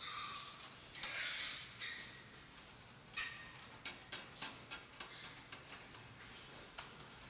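A crowded barn of pigs: squeals in the first couple of seconds, then a run of sharp clicks and knocks.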